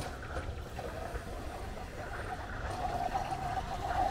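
Outdoor street background: a low, steady rumble of traffic with a thin, steady whining tone that grows louder in the second half.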